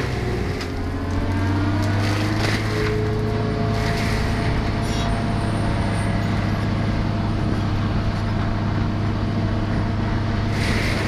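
Engine of a heavy tree-removal machine running steadily, with a strong low hum and some shifts in pitch early on. Short bursts of rushing noise come through, the loudest near the end.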